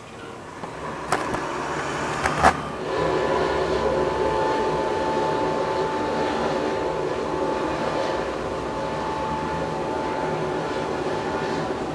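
Heavy lorries running on the road, a steady engine rumble with a steady high whine throughout the latter part. Several sharp clicks come near the start.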